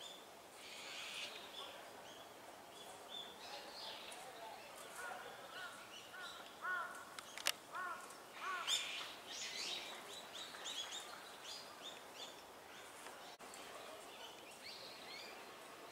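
Azure-winged magpies calling softly: a string of short, arched notes about five seconds in, then a quick run of high chirps, with scattered calls throughout. A single sharp click about seven and a half seconds in.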